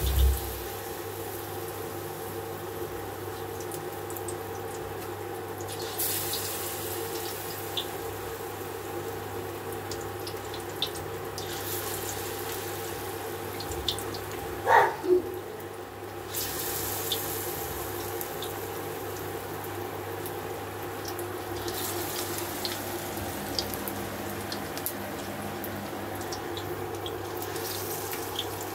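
Besan-battered potato tikkis deep-frying in hot oil: a steady sizzle with scattered small pops. A thump comes right at the start, and a brief falling squeak sounds twice about halfway through.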